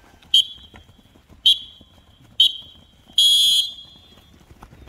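A coach's whistle gives three short, sharp blasts about a second apart, then one longer, louder blast of about half a second. Each blast signals the players to run.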